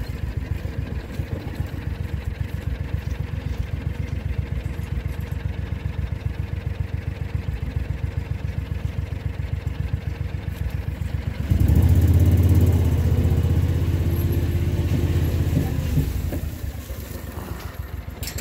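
Vehicle engine running at an even pace, then growing louder about eleven seconds in, holding that higher level for about five seconds, and dropping back near the end.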